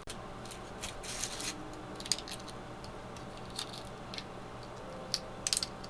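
Quiet handling noise: soft, scattered clicks and rustles of small plastic toy pieces being moved about, over a faint steady hum.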